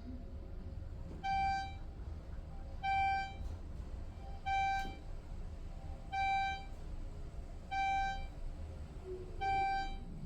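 Elevator car's electronic beep sounding six times at an even pace, about once every second and a half, each a short clear tone, over the low steady rumble of the car travelling up.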